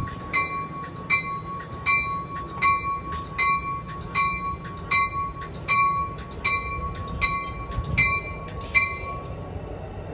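A bell rings steadily, about two and a half strokes a second, over the low rumble of a double-deck passenger train rolling through the station. The bell stops near the end.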